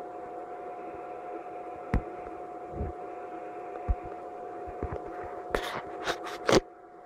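Steady fan-like whirring hum with a constant whine through it, and a few soft thumps. Near the end comes a quick run of four or five loud sharp clicks or knocks, after which the hum turns quieter.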